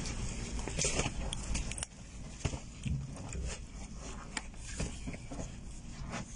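Irregular knocks, clicks and scrapes of wooden boxes being handled and shifted in a cramped hidden floor compartment, over a low steady rumble.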